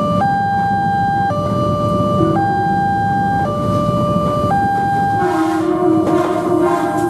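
Indonesian railway level-crossing alarm: an electronic two-tone signal switching between a higher and a lower pitch about once a second, over the low rumble of a passing train. About five seconds in, a train horn sounds for about a second and a half.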